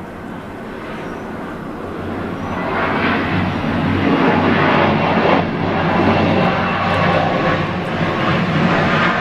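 Boeing 767-300's jet engines at takeoff power during the takeoff roll. The noise grows louder over the first three seconds, then holds steady.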